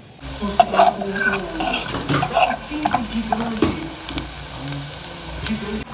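Chopped aromatics sizzling as they fry in oil in an aluminium pot, with the clicks and scrapes of a utensil stirring against the pot. The sizzle starts suddenly just after the start.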